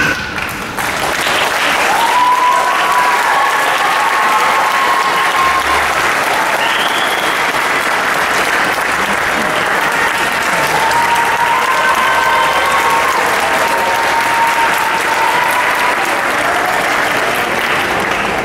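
Audience applauding steadily, building up within the first second, with voices cheering over the clapping.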